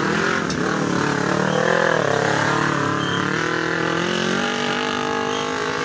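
Engine of a Kawasaki Ninja sport motorcycle revving as it climbs a steep incline and passes close by. Its pitch dips and rises about two seconds in. A car's engine follows it up the slope.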